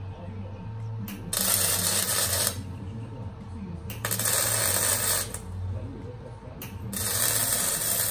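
Electric arc welding on a steel drum smoker: the arc crackles and sizzles in three bursts of about a second each, with short pauses between welds.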